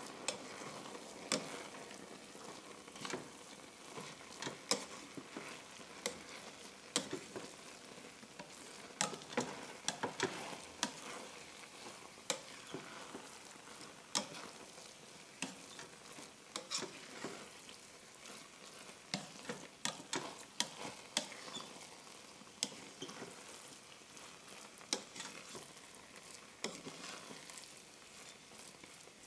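A spatula stirring and turning freshly cooked rice in a rice cooker's inner pot, with irregular scrapes and taps against the pot throughout.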